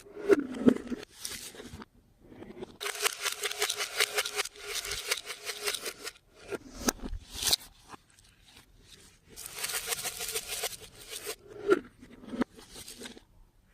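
Clear slime being squeezed and worked by hand, giving bursts of rapid sticky crackling and popping. Two long bursts of about a second and a half each are separated by shorter pops and brief squelches.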